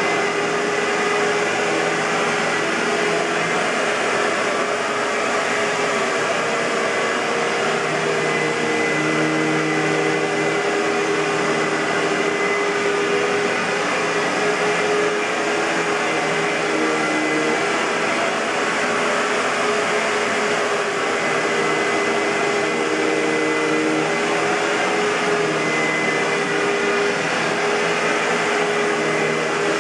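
Hoover WindTunnel bagless twin-chamber upright vacuum cleaner (U5753-900) running steadily, a constant rush of air with a motor whine over it.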